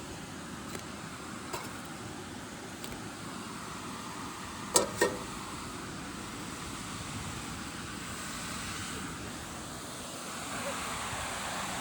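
Steady rushing background noise, with two sharp clicks close together about five seconds in.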